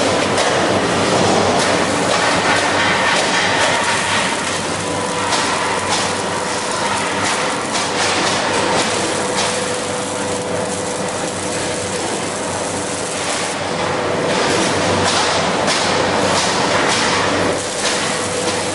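Automatic arc welder welding the seam of a steel LPG cylinder: a loud, dense crackle that runs throughout, with a steady hum joining it about five seconds in.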